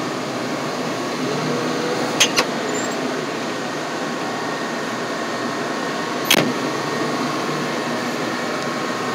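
Wheel loader's engine running steadily, heard from inside the cab. Two sharp clicks come about two seconds in and a louder knock about six seconds in.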